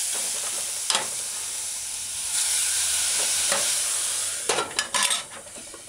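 Okra, codfish and onions sizzling and steaming in a stainless steel pot just after a splash of water, with a spoon stirring through them. Near the end a few clinks as a glass lid is set on the pot, and the sizzle turns much quieter.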